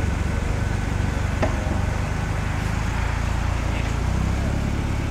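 Rock buggy's engine running low and steady as it crawls up a steep rock face, with one sharp click about a second and a half in.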